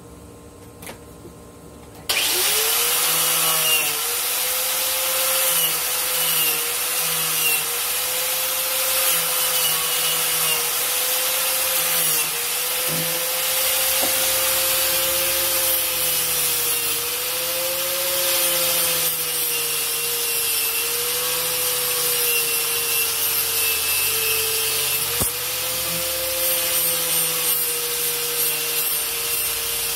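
A power tool switches on about two seconds in and runs with a steady whine whose pitch sags and recovers again and again as the rusty knife blade is pressed against it to strip the rust.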